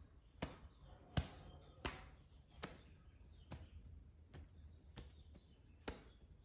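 Paper towel being dabbed against a painted AR-15 rifle to blot on camo paint: a series of faint, soft taps, a bit more than one a second.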